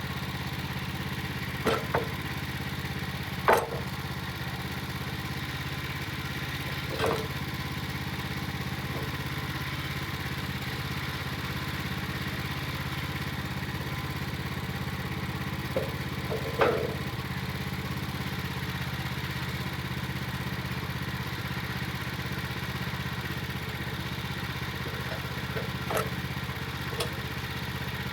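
Portable bandsaw mill's gasoline engine running at a steady speed, with a few sharp knocks now and then, typical of boards being handled and set down on the mill.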